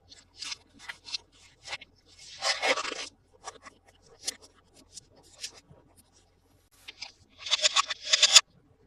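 Toy packaging being handled and opened by hand: a string of short crinkles and scrapes, with two louder stretches of rustling, about two seconds in and near the end.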